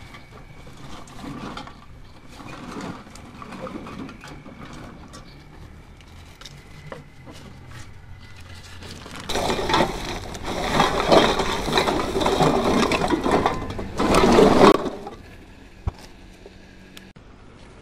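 Empty plastic bottles and woven plastic sacks rustling and crackling as scrap is handled and packed, with a loud stretch of crackling about nine seconds in that lasts some five seconds.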